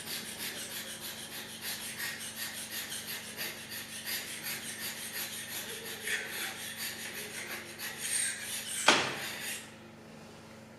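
Carbide-tipped hand scraper scraping the unhardened guideway of a surface grinding machine: a rapid, even run of short rasping strokes. Near the end a single sharp knock, after which the scraping stops.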